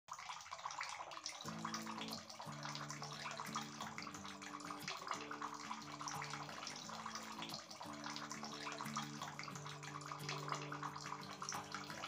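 Water trickling and splashing steadily from the pipe spout of a small homemade wall-waterfall fountain into its basin.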